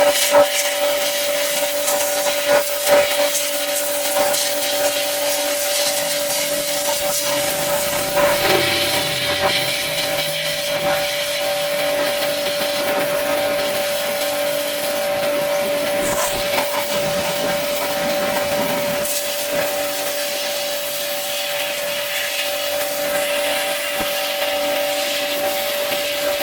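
Pressure washer running steadily, its motor humming under the hiss of the water jet, with a few short knocks in the first few seconds.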